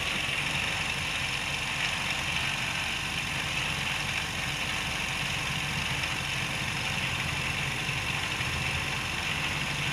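Steady machine hum: a motor or engine running continuously at an even level.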